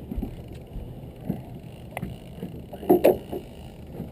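Steady low hum aboard a fishing boat on the water, with scattered light knocks and two loud short sounds close together about three seconds in.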